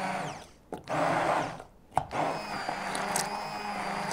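Immersion hand blender puréeing chunky mushroom sauce in a stainless steel saucepan. It runs in three bursts with short pauses between them, the last burst the longest.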